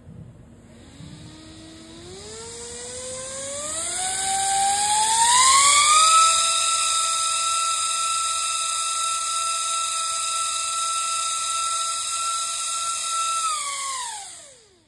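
Small brushed DC motor spinning a two-bladed plastic fan, driven by a PWM speed controller. Its whine climbs in steps as the speed knob is turned up, holds steady at full speed, then winds down quickly near the end. A hiss of moving air runs under it.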